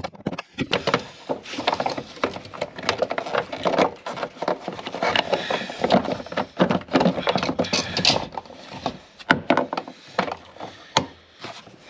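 Mallet striking a lever bar to knock the fuel pump's locking ring round and loosen it: a run of irregular knocks.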